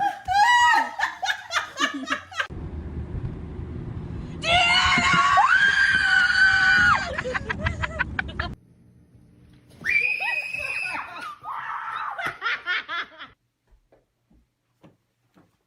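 People laughing hard, then a long, loud, high scream over a low rumbling noise, followed by a shorter shriek and another burst of laughter.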